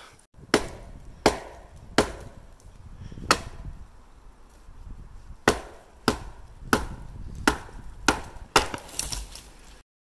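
Hatchet chopping into a thin dead tree trunk: about eleven sharp blows, mostly one every half to three-quarters of a second, with a pause of about two seconds after the first four.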